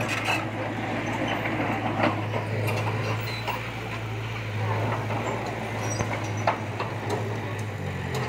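Heavy construction machinery's diesel engine running steadily, with a couple of sharp clanks.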